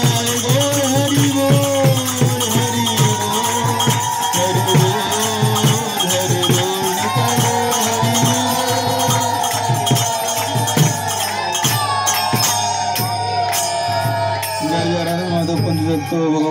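Devotional kirtan: a man's voice singing long held lines through a microphone over a steady beat of small brass hand cymbals (kartals). The cymbal strokes die away near the end.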